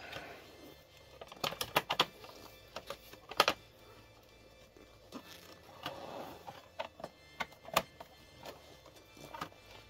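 Irregular clicks, taps and light knocks of plastic and metal parts being handled and snapped into place while a Tchibo Cafissimo capsule coffee machine is put back together.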